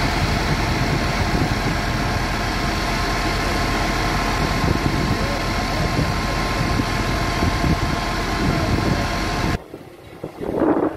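Fire truck's engine and pump running steadily, a constant machine drone with a few held tones, as the aerial ladder sprays water. Near the end it cuts off abruptly, leaving quieter, uneven outdoor noise.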